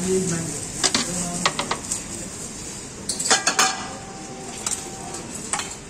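Metal utensils clinking against a large metal cooking pot and steel bowls while mutton trotters are served out. There are several sharp clinks, with a cluster about three and a half seconds in; one strike is left ringing for over a second.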